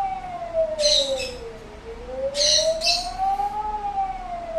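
Singapore Public Warning System siren sounding the Alarm signal, a wailing tone that slides slowly down, climbs back up and falls again. It is the signal to move to a shelter immediately. Birds chirp over it.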